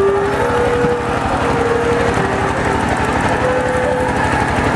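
Small boat engine running steadily with a fast, even beat, mixed with scattered shouting voices.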